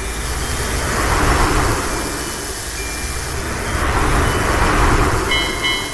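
A train running past: a steady low rumble with a noisy hiss that swells and fades every second or two. Near the end, the ringing tones of a railway level-crossing bell begin.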